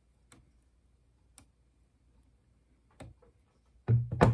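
A few faint, sharp clicks of small plastic wire connectors being handled and pushed into the laser engraver's carriage. Near the end, a louder handling knock and thud.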